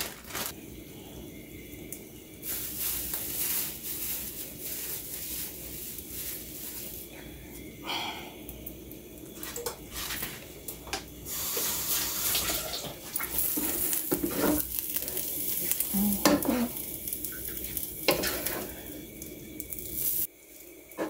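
Wooden spoon stirring and scraping fried rice in a nonstick pot, with a frying hiss that swells and fades in stretches and a few sharp knocks of the spoon against the pot.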